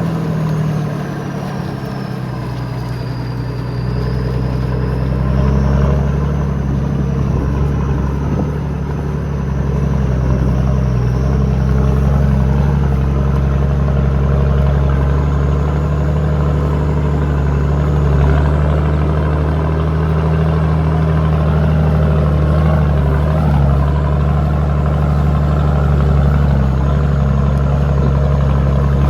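Nissan Patrol Y61's 2.8 six-cylinder turbo diesel running through a straight-through stainless steel exhaust, with a high turbo whistle over the engine note. Both ease off a second or two in, the whistle sinking in pitch, then come back up about six seconds in and run steady. The whistle fades out about two-thirds of the way through.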